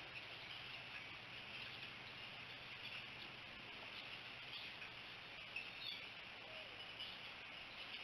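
Faint, steady insect chorus, with a few short high chirps over it around the middle and near the end.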